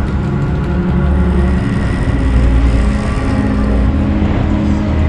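Side-by-side UTV engines running steadily, heard from on board one of the machines as it rolls slowly in a line of others, the engine note shifting a little with the throttle.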